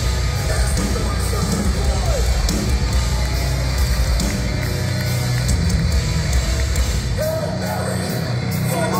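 Hardcore band playing live at full volume: heavy distorted guitars, bass and drums under shouted vocals, heard from within the crowd. The deepest bass thins out about seven seconds in.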